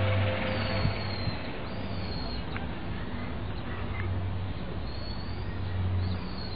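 The last note of a public-address chime rings out and fades in the first second. A steady low hum continues, with a few short, high bird chirps.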